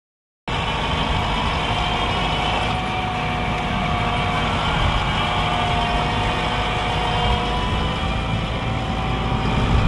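AgXeed AgBot tracked field robot running steadily as it pulls a tillage implement across the field: a low rumble with a steady whine over it. The sound cuts in about half a second in.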